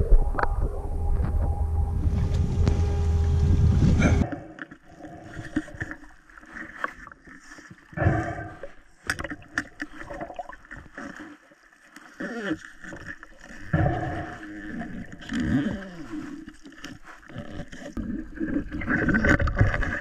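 A boat's outboard motor idles with a steady low hum for about four seconds, then cuts off abruptly to underwater sound: muffled gurgling and sloshing of water around the camera with scattered knocks.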